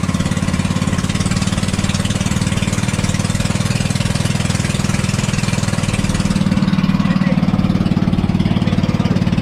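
Engine of a motorized outrigger banca boat running steadily under way, a low pulsing drone with a hiss of wind and water over it. The drone grows a little louder about two-thirds of the way in, as the hiss fades.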